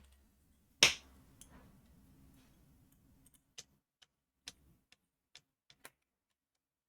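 One loud sharp click, then a faint low hum, then a run of about seven small, light clicks spaced unevenly over a couple of seconds: handling of the amplifier test setup and its controls.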